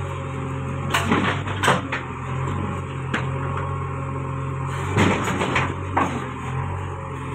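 JCB backhoe loader's diesel engine running steadily as its bucket digs at a neem tree root, with several sharp cracks and knocks, two about a second in and a cluster about five to six seconds in.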